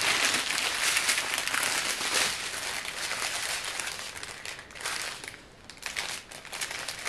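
Plastic packaging crinkling and rustling as it is handled, dropping away for a moment about five seconds in before starting again.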